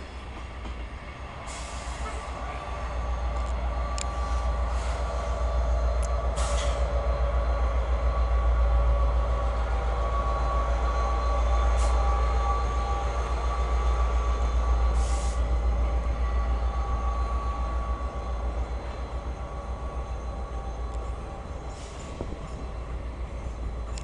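Norfolk Southern diesel locomotive and its train passing close by: a deep rumble that builds to a peak midway and eases off, with a thin steady squeal and a few sharp clanks.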